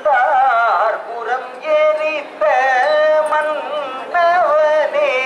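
A voice singing a Tamil devotional verse for the temple flag hoisting, in short melodic phrases with ornamented bends of pitch and brief breaks between them.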